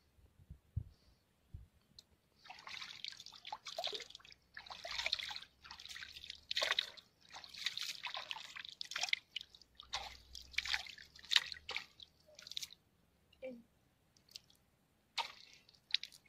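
Reservoir water splashing and dripping as a hand scoops and flicks it at the water's edge: a run of repeated splashes that stops a few seconds before the end, followed by one sharp splash.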